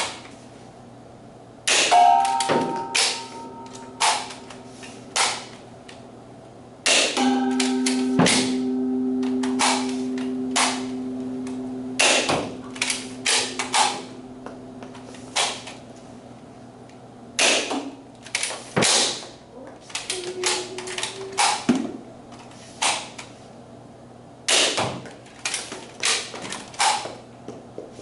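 Nerf Rival blasters being primed and fired: a long irregular string of sharp clacks and pops, some in quick runs. A steady low tone sounds under them for several seconds starting about a quarter of the way in.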